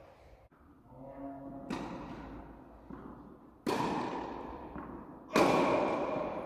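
Tennis rally: a ball struck by racket strings and bouncing on the court, three sharp hits about two seconds apart, the loudest about five seconds in. Each hit rings on with a long echo in a large indoor tennis hall.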